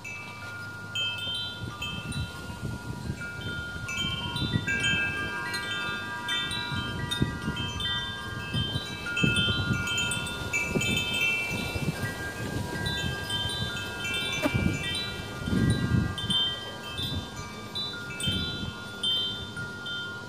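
Wind chimes tinkling, a steady scatter of overlapping ringing notes, with the lower notes holding longer. Low rumbles of wind on the microphone come and go, loudest about three quarters of the way through.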